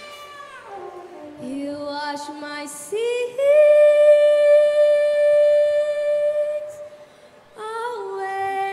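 A girl singing solo into a microphone, moving through a few short notes and then holding one long, steady note for about three seconds, which is the loudest part. After a brief pause she sings on near the end.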